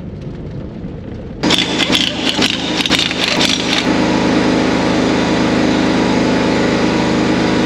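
Low vehicle-cabin rumble, then about a second and a half in a run of sharp rattling knocks as the spreader's drive wheel is handled, giving way to an engine idling steadily.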